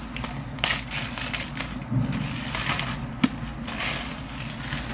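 Plastic shrink wrap crinkling and crackling in irregular rustles as it is pulled off a MacBook Air box, with one sharp click a little past three seconds in.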